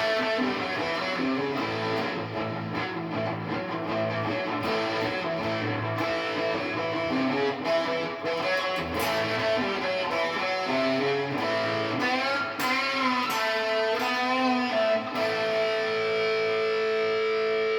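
Guitar playing a lead blues line of single notes with string bends about twelve seconds in, ending on a long held note.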